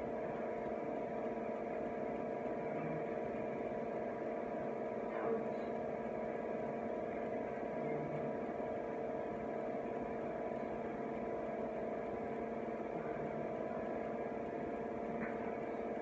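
Steady mechanical room hum made of several steady tones, with a faint tick about five seconds in.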